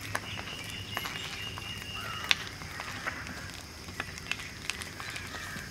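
Large outdoor bonfire crackling, with scattered sharp pops and one louder pop about two seconds in, while birds call in the background.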